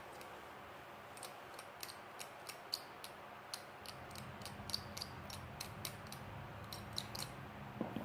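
Light, irregular clicks and taps of small repair tools against a smartphone's parts, a dozen or more over several seconds, with a low hum coming in about halfway.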